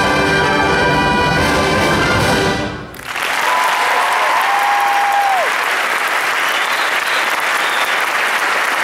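Marching band's brass section holding a final chord that cuts off sharply about three seconds in, followed by an audience applauding, with one long whistle that drops in pitch at its end rising over the clapping.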